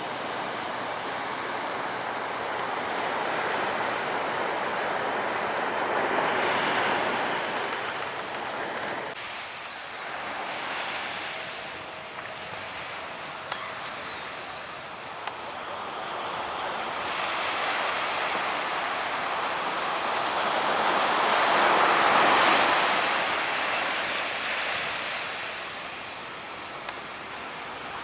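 Surf breaking on a beach: two broad swells of wave noise, the louder one about two-thirds of the way through, with wind on the microphone.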